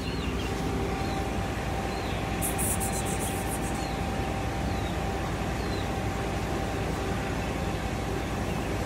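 Steady background rumble with a constant mid-pitched hum running through it, and a short high chirp that repeats about once a second. A brief high hiss comes in about two and a half seconds in.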